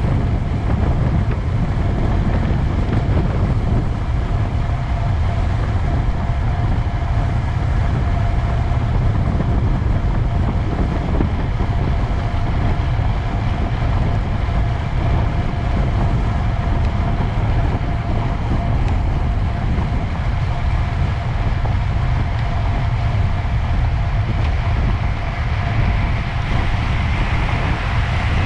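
Steady wind rumble buffeting the microphone, with a faint steady tone running through most of it.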